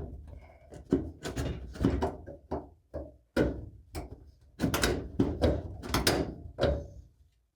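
Irregular series of sheet-metal clunks and knocks as a dryer cabinet panel is worked and seated into place, about fifteen impacts in all.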